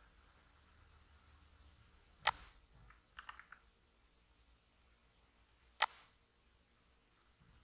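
A few separate clicks of a computer keyboard and mouse: a sharp one about two seconds in, a quick run of lighter clicks a second later, and another sharp one nearly six seconds in.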